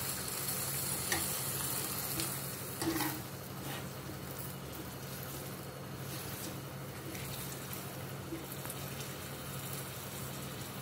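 Tomato, onion and spice mixture cooking in water in an aluminium kadai on a gas flame, with a steady sizzle. A metal spoon stirs it, clicking and scraping against the pan a few times.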